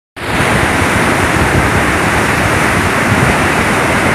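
Floodwater in a swollen river rushing and churning over rocks: a loud, steady rush that cuts in abruptly just after the start.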